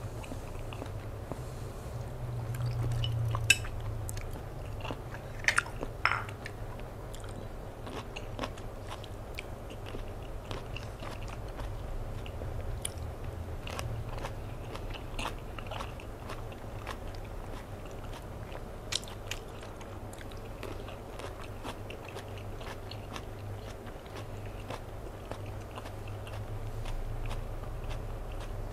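Close-up chewing of a mouthful of raw salmon in dipping sauce: wet mouth clicks and small crunches, with a few sharper clicks about three and a half and six seconds in.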